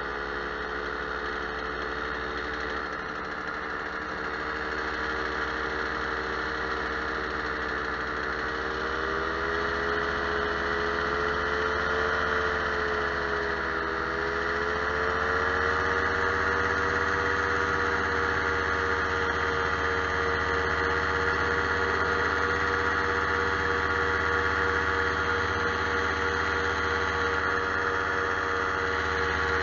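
Powered paraglider's engine and propeller running continuously in flight, its pitch wavering slightly and dipping briefly about halfway through before steadying, then a little louder.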